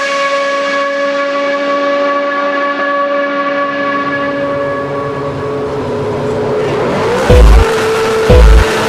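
Race car engine note held at one steady pitch, slowly fading away. Near the end a lower steady tone comes in, with two deep thumps about a second apart, one for each red start light as it comes on.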